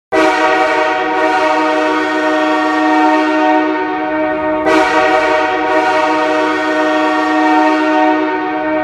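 Hockey arena goal horn of the Los Angeles Kings blaring at a steady pitch in two long blasts, the second starting about halfway through.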